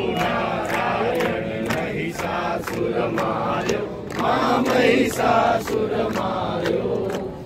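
A crowd of worshippers singing a Hindu aarti to the goddess in unison, with steady hand claps keeping time about two or three a second.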